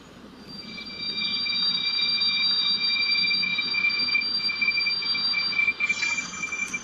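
A high-pitched, alarm-like electronic tone with several pitches held together, lasting about five seconds before it cuts out, followed by a couple of sharp clicks near the end.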